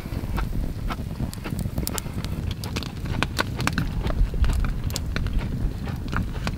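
Wood campfire crackling with many sharp, irregular pops, over a low rumble of wind on the microphone.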